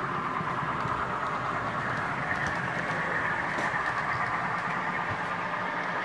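Model diesel locomotive's sound-unit engine sound, a diesel engine running steadily as the train moves along the track.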